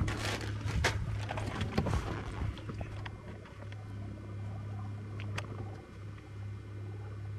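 Ride in a golf cart across a fairway: wind and rattling, with crackling knocks, loudest in the first two seconds. Then a steady low hum sets in, with a single sharp click a little past halfway.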